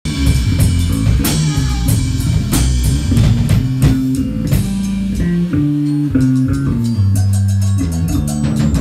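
Instrumental rock jam: a drum kit keeps a steady beat under a bass line moving between held notes, with guitar.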